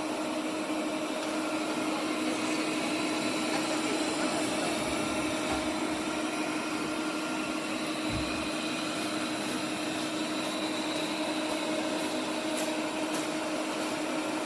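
BPMIO robot vacuum and mop combo running as it cleans: a steady suction-motor hum with an even tone, and a couple of faint ticks near the end.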